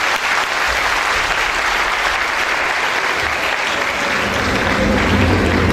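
Audience in a hall applauding, steady dense clapping.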